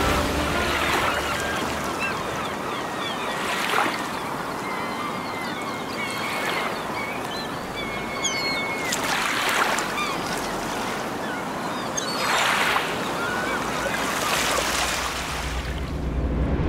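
Seaside ambience: surf washing in and out in swells every few seconds, with birds calling over it.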